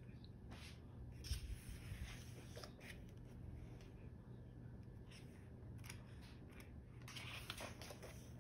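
Pages of a paperback photobook being turned by hand: several short, soft paper rustles and swishes as sheets slide and flip, over a faint steady hum.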